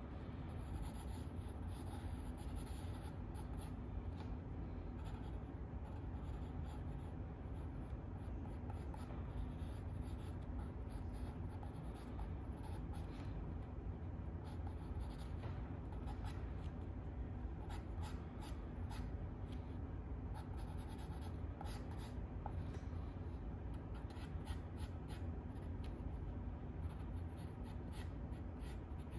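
Drawing strokes scratching across sketchbook paper, in short runs with brief pauses, over a steady low hum.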